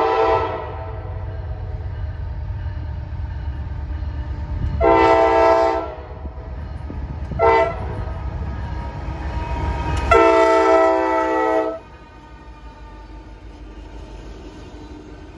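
Norfolk Southern GE diesel locomotive's multi-note air horn blowing the grade-crossing signal: the tail of one blast at the start, then a long blast about 5 s in, a short one about 7.5 s in and a long one at about 10 s, over the low rumble of the lead locomotives. The rumble drops off suddenly after the last blast as the engines pass, leaving the quieter rolling of the freight cars.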